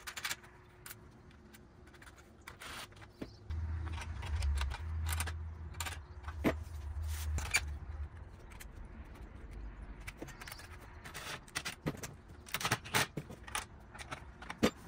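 Small metal clinks and light scrapes of bolts, nuts and a hand wrench as Z mounting brackets are fastened to a solar panel's aluminium frame. The clicking comes thicker near the end. A low rumble starts about three and a half seconds in and lasts about four seconds.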